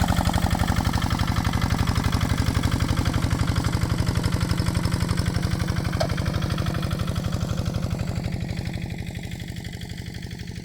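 Kubota RD65 DI single-cylinder diesel engine of a hand tractor running steadily, a rapid even beat of about a dozen firing pulses a second, fading in the last few seconds.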